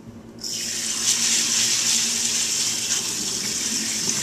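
Kitchen tap turned on about half a second in and running steadily, water pouring over lentils in a strainer to rinse them.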